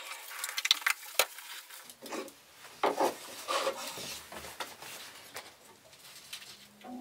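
Pine frame pieces handled and shifted on a plywood workbench: a few sharp clicks, then a run of short wooden knocks and rubbing as the boards are moved and set down.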